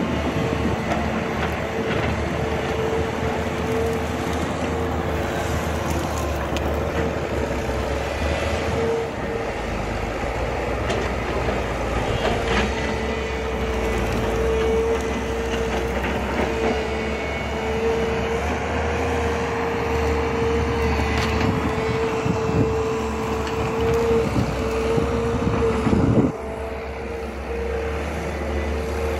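JCB tracked excavator working, its diesel engine running steadily with a constant whine over it and occasional knocks. The sound drops off suddenly near the end.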